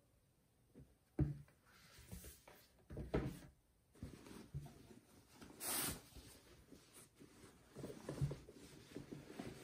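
Scattered knocks and clatter of objects being handled, the sharpest about a second in and again about three seconds in, with a short hiss a little under six seconds in.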